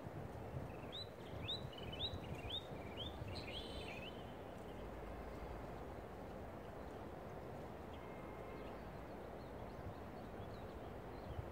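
A songbird gives a run of about seven short chirps, one every half second or so, over the first few seconds, above a steady low rushing background.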